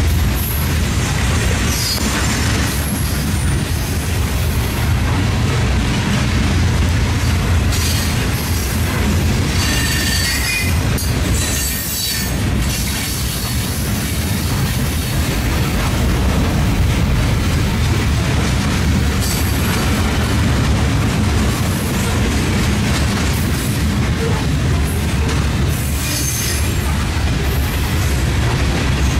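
Freight train of hopper cars rolling past close by: a steady low rumble of wheels on rail, with the wheels squealing briefly a few times.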